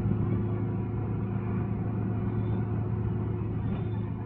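Auto-rickshaw's small engine running at road speed with road noise, heard from inside its open cabin: a steady low drone.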